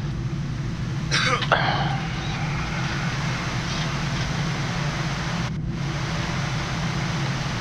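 Steady flight-deck noise of a Boeing 787 on final approach, with gear and flaps down: airflow and air-conditioning hiss over a low hum. A short burst of sound, like a cough or throat-clearing, comes about a second in.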